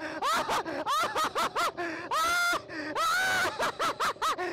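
A person laughing hysterically in loud, high-pitched bursts, about four or five a second, broken twice by a longer squealing held note in the middle.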